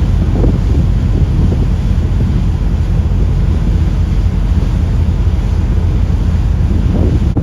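Wind buffeting the microphone over the steady low rumble of a car ferry under way at sea.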